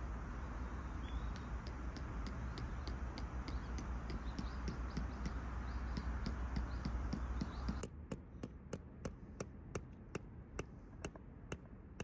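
A tent stake being hammered into gravelly ground, with sharp, even strikes about three a second. A low background rumble underneath drops away about eight seconds in while the strikes go on.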